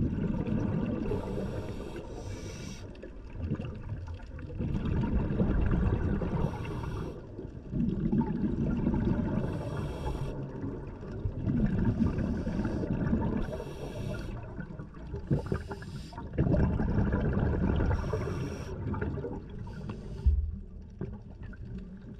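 Scuba diver breathing through a regulator underwater: a short hiss of inhalation every two to three seconds, alternating with low, bubbling exhalations.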